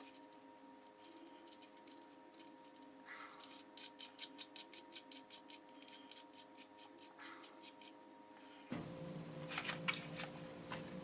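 Faint run of rapid small clicks, about five a second, over a low steady hum, followed after a change in the background by a few louder clicks near the end.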